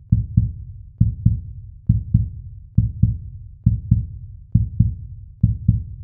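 Heartbeat sound effect: a low double thump, lub-dub, repeating steadily a little faster than once a second.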